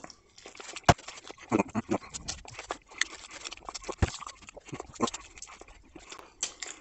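Close-up eating noises of a man wolfing down hot chicken wings: irregular lip smacking, sucking and chewing as he strips meat off the bones, with a couple of short grunts. Two sharp clicks, the loudest sounds, come about a second in and at about four seconds.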